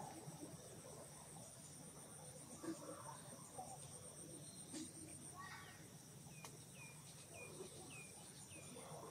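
Faint forest ambience: an insect's steady, high, pulsing trill that stops about halfway through. Near the end come five short, high, falling chirps about half a second apart.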